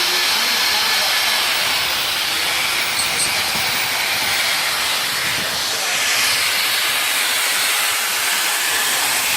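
Loud, steady hiss with no break, strongest in the upper range.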